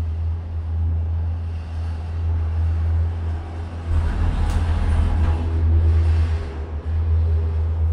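Steady low rumble with wind and motion noise from a moving Disney Skyliner gondola cabin, swelling louder and noisier about four seconds in.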